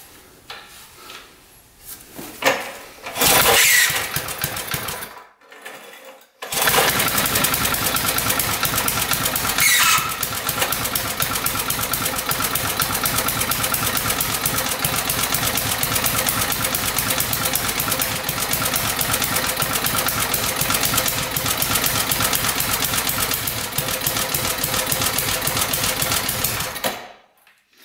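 A 5 hp Briggs & Stratton single-cylinder engine on a minibike: after a short loud rattle about three seconds in, it catches a few seconds later and runs at a steady, unchanging speed for about twenty seconds, then stops abruptly near the end. It is not revving up, and the owner finds it running too rich.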